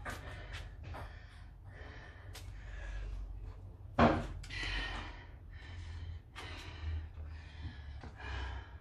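A woman breathing hard and fast from the exertion of six-count burpees, gasping breaths about twice a second. One loud thump about four seconds in.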